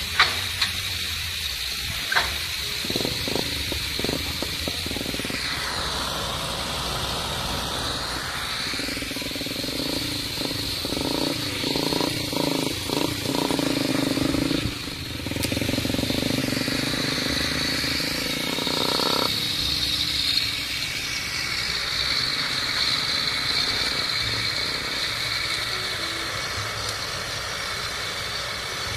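Sumitomo SH210 hydraulic excavator's diesel engine running while the machine works its boom and bucket, with two sharp knocks in the first few seconds and a fuller, stronger engine note from about a third of the way in until about two thirds through.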